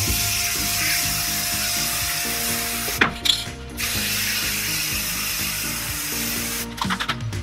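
Aerosol spray-paint can hissing as coats of paint go onto a steel PC case. The hiss breaks off about three seconds in and stutters near the end. Background music plays underneath.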